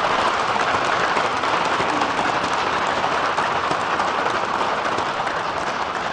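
Applause from a crowd, a steady dense patter of many hands clapping.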